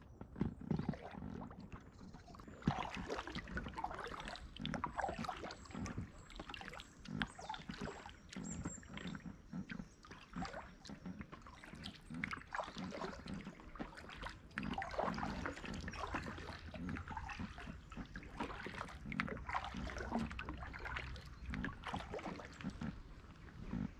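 Paddle strokes in calm lake water alongside a packraft: repeated dips and splashes with dripping and gurgling, steady throughout.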